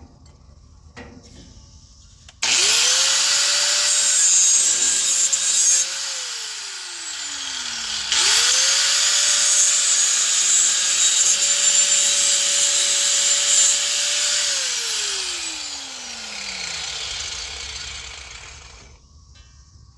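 Corded handheld power tool cutting through steel exhaust pipe. Its motor spins up to a steady high whine over a harsh cutting hiss and winds down with falling pitch. It does this twice: a short run starting a couple of seconds in, and a longer run of about six seconds starting about eight seconds in.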